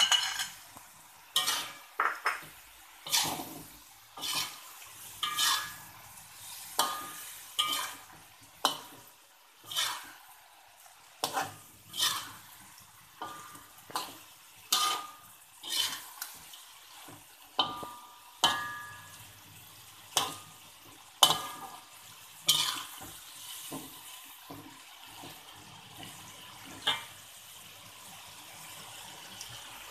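Slotted metal spatula scraping and knocking against a wok while stirring chicken, tomato and onion in a thick chilli sauce, about one stroke a second. The stirring stops a few seconds before the end, leaving a soft sizzle from the pan.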